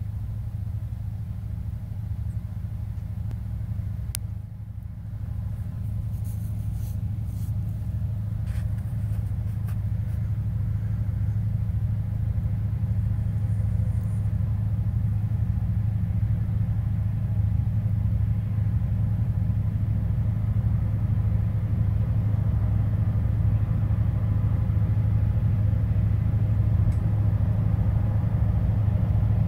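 Diesel-electric locomotives, an EMD GP9 leading two six-axle units, working under load as they crawl a train up out of a coulee: a steady low engine drone that grows slowly louder as they approach.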